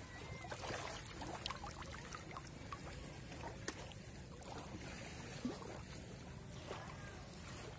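Shallow seawater trickling and lapping as a person wades and works a hand in the water, with a few faint clicks.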